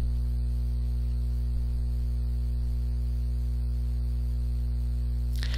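Steady low electrical hum, mains hum with its evenly spaced overtones, and faint hiss. The level does not change throughout.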